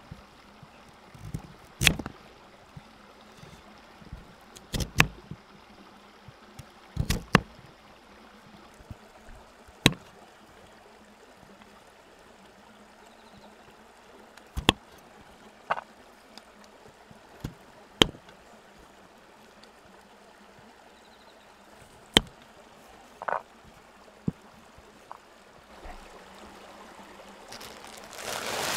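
Kitchen knife slicing through raw sweet potato and tapping on a wooden cutting board, a sharp knock every few seconds over a faint steady hiss. Near the end, water begins to rush from a plastic bag into an aluminium mess tin.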